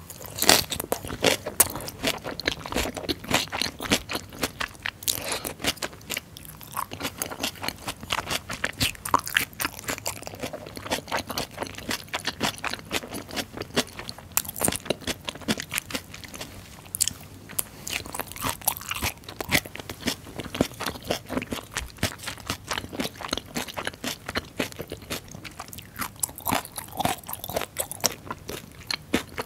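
Chewing a mouthful of fermented skate with pork and aged kimchi, giving a continuous run of crisp, wet crunches.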